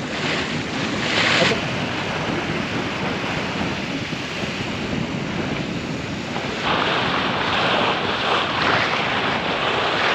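Water rushing and splashing along the hull of a monohull sailboat under sail, with wind buffeting the microphone. The splash grows louder briefly about a second in and again from about two-thirds of the way through.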